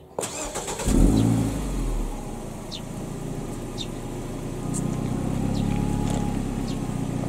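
Nissan C25 Serena's 2.0-litre four-cylinder engine being cranked by the starter, catching about a second in with a brief flare in revs, then settling into a steady idle through an aftermarket Fujitsubo muffler.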